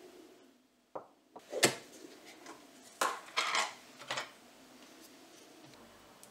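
A ceramic hand juicer set down on a wooden cutting board with a sharp knock, followed by a few clicks and clatters as a plastic tub of honey is handled and opened.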